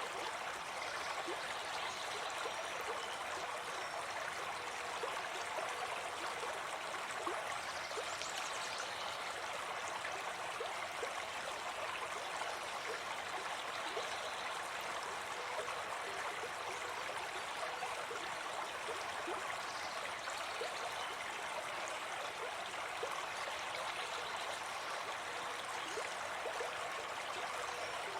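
Forest stream flowing steadily, an even rush of running water.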